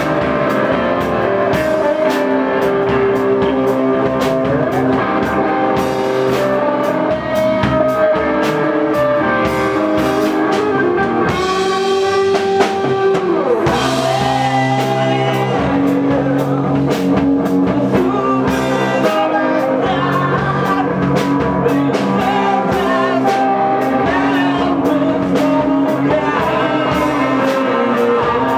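Live rock band playing, the bass line on a Squier Jazz Bass, with regular drum-kit hits throughout.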